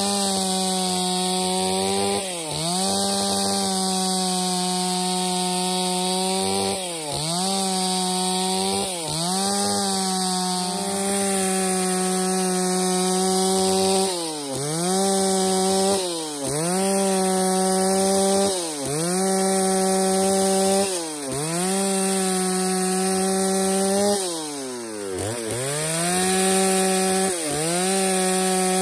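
Stihl MS 381 two-stroke chainsaw running near full throttle while ripping a dry angico log lengthwise into boards. Its engine pitch dips briefly and recovers about every two seconds, with one deeper, longer dip near the end.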